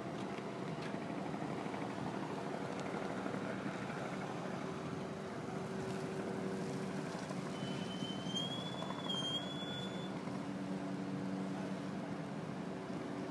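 Helicopter running steadily: an even engine and rotor noise with a few held low tones. A high whine comes in for about two and a half seconds in the middle.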